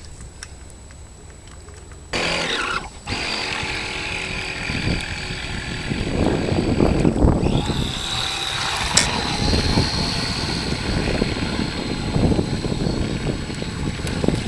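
Radio-controlled speedboat's outboard, driven by a 550-size brushed electric motor, whining into life about two seconds in with a rising pitch, dropping out briefly, then running steadily as the boat speeds away. A rough low noise sits under it in the second half, with a single click about nine seconds in.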